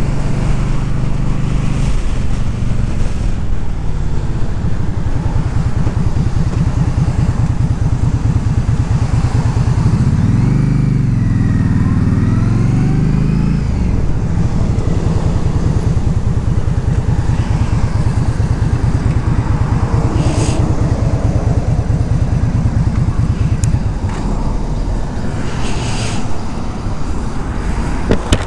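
Motorcycle V-twin engine running while riding on a freeway, with wind rush over the microphone. The revs rise and then fall about halfway through, and the engine is quieter near the end as the bike slows to a stop.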